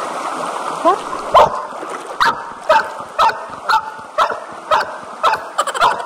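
Golden retriever puppy barking repeatedly, short high yips about two a second, over the steady rush of a shallow river.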